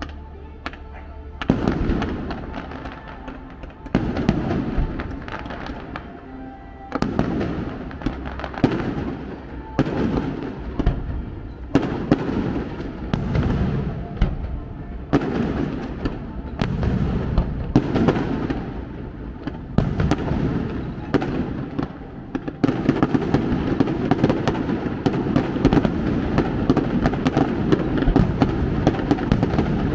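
Aerial fireworks display: shells bursting with a bang every second or two, each trailing off. About three-quarters of the way through they merge into a dense, continuous barrage of bangs and crackle.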